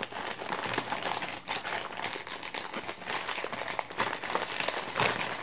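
Plastic courier mailer bag crinkling and rustling in the hands as it is pulled open, a continuous run of small crackles.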